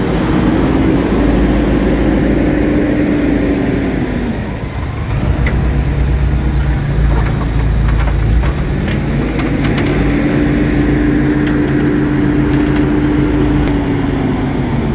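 Bobcat telehandler's engine running under hydraulic load as the boom works a pallet of concrete blocks. The engine's pitch sinks over the first few seconds, picks up again about nine seconds in, holds, and falls back near the end, with a few light clicks midway.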